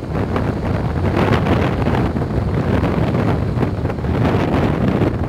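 Wind blowing across the camera microphone: a loud, steady low rumble with hiss above it.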